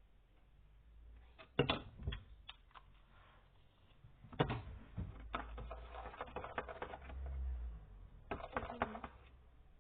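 A spoon stirring glue and colouring in a bowl, with irregular clicks and knocks of the spoon against the bowl in several spells.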